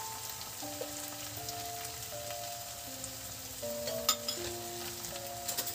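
Background music, a slow melody of single held notes, over the faint sizzle of okra and potatoes frying in oil in a steel kadhai, with a few light crackles.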